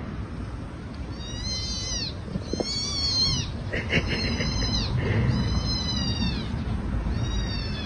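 Kitten mewing: five high, thin calls about a second and a half apart, each rising briefly and then falling away, as an adult cat carries it by the scruff.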